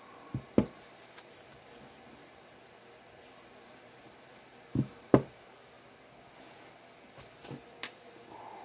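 Metal indexer parts handled and set down on a wooden workbench: two pairs of sharp knocks, about half a second in and about five seconds in, then a few lighter taps near the end.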